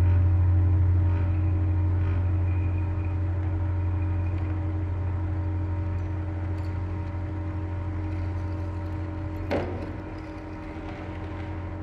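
Experimental improvised music: a loud, steady low droning hum with several held tones above it, slowly fading. A brief swooping sound cuts through about nine and a half seconds in.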